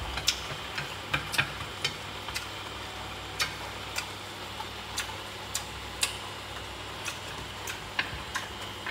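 Light, sharp clinks at uneven intervals, about one or two a second, from cooking at a pot of clam soup, over the steady low hum of a kitchen range hood fan.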